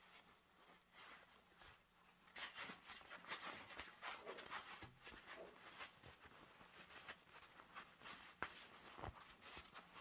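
Faint rustling and scraping of materials being handled, coming in short irregular bursts, with one sharp click about eight and a half seconds in.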